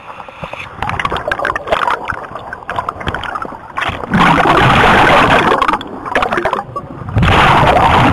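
Water splashing and bubbling right against the microphone as the camera is plunged under water, with crackling splashes at first and then two long, loud rushes of churning water and bubbles, the second starting near the end.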